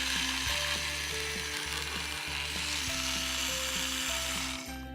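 Battery-powered toy drill from a Play-Doh Doctor Drill 'n Fill set spinning steadily as it drills out a Play-Doh tooth, stopping just before the end.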